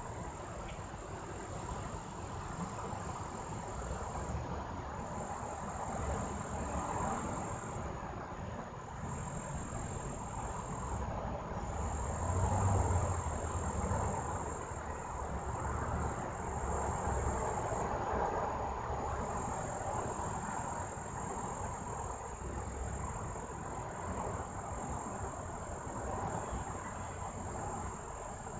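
2001 Goodman air conditioner running steadily, a low rumble and whooshing hum that swells briefly around the middle, with crickets trilling steadily over it.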